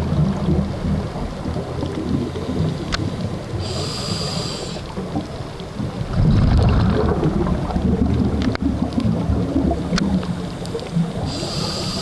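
Scuba diver breathing through a regulator, heard underwater: a low rumble of exhaled bubbles, strongest at the start and again about halfway, and two hissing inhalations, one about a third of the way in and one near the end. A few faint sharp clicks sit over it.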